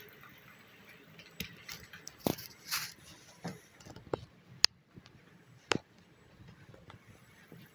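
Irregular light clicks and knocks, two sharper ones a little past the middle, with a brief rustle near three seconds in.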